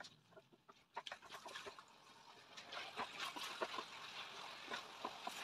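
Chicken pieces cooking in masala in a stainless-steel pressure cooker, stirred with a spatula. There are scattered scrapes and taps of the spatula on the pan, then a faint crackling sizzle that thickens from about halfway through.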